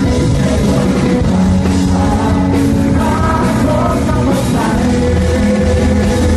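A song with singing, playing loudly and steadily.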